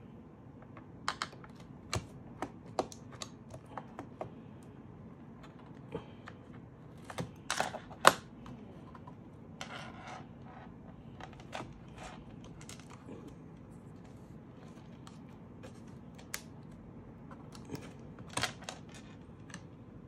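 Scattered clicks and taps of a laptop's 2.5-inch hard drive and its metal caddy being handled and worked loose from the plastic drive bay. A quick cluster of sharper clicks comes about seven to eight seconds in, the loudest of them near eight seconds, and another small cluster comes near the end.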